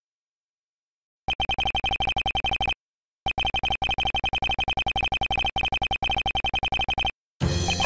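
Ace Attorney-style dialogue text blips: a rapid stream of short electronic beeps as each letter of a line scrolls into the text box, starting about a second in, in two runs with a brief pause between them. Music with drums comes in near the end.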